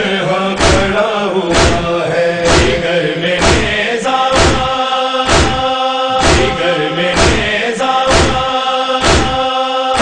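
Noha chorus of male voices chanting a sustained refrain over a steady matam beat of chest-striking thumps, about one a second.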